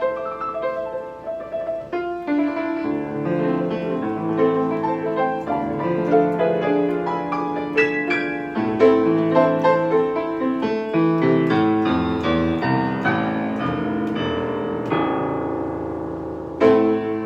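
Steinway piano playing a continuous passage of many notes over a moving bass line, with a loud chord struck near the end.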